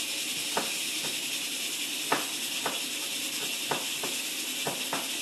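Chef's knife slicing a small green pepper on a plastic cutting board: about nine short, irregularly spaced knocks as the blade hits the board. A steady hiss runs underneath.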